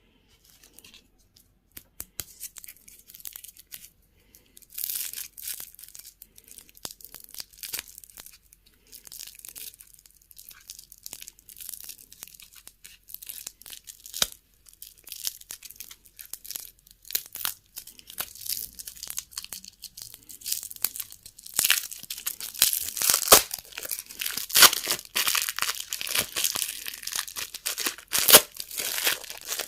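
Plastic candy packaging being torn open and crinkled, with many sharp crackles and snaps; the crinkling grows louder and denser in the second half.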